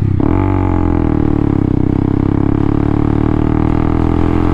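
Honda motorcycle engine pulling under acceleration: its pitch dips briefly near the start, then climbs slowly and holds steady.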